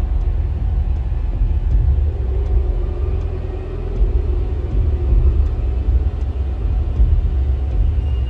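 Dark ambient background music: a deep, steady rumbling drone with faint sustained tones above it.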